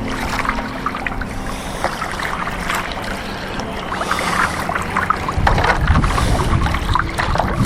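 Steady outdoor noise of wind and lapping water with small crackles, joined by a low rumble from about five seconds in.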